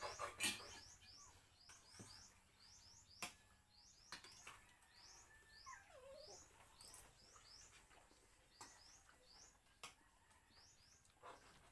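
Small birds chirping faintly: short, high, falling chirps repeated in quick pairs and threes. A few light clicks of cutlery on plates sound between them.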